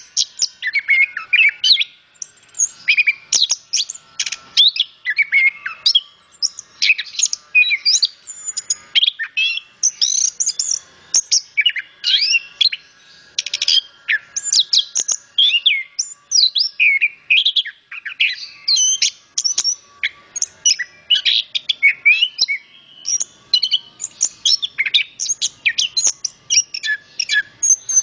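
Chestnut-capped thrush (anis kembang) singing a continuous, varied song of rapid, high, sweeping phrases with only brief pauses between them.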